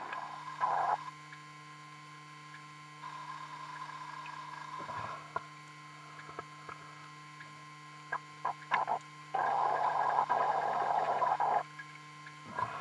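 Steady low electrical hum. Three stretches of rushing noise, the longest near the end, and a quick run of clicks shortly before it.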